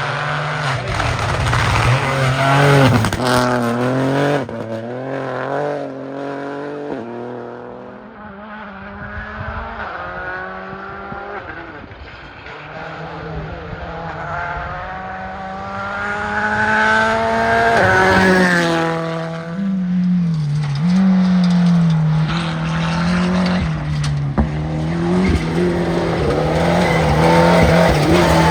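Rally car engine revving hard and climbing through repeated gear changes, the pitch rising and dropping back with each shift, with some tyre squeal. The sound fades somewhat in the middle and builds again towards the end.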